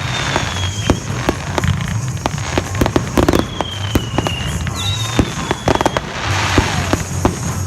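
A fireworks display going off: a run of sharp bangs and crackles, with high whistles that slide slowly down in pitch about three times.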